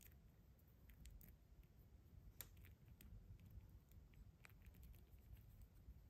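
Near silence with faint, scattered plastic clicks and soft rubbing as fingers turn and handle a small plastic Tails action figure.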